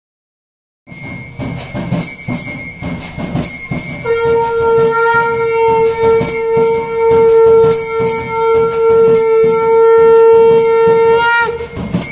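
Bells ringing over and over. About four seconds in, a conch shell is blown in one long held note lasting some seven seconds, its pitch lifting just as it ends.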